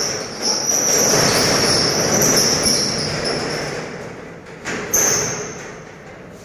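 Manual steel rolling shutter being pulled down by hand, its slats rattling in the guides with a thin high squeal, the noise fading as it closes. A sharp knock about five seconds in, then dying away.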